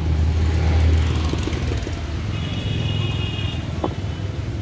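Passing road traffic: a vehicle engine's low rumble that swells to its loudest about a second in and then eases. A brief high, steady tone sounds just past halfway.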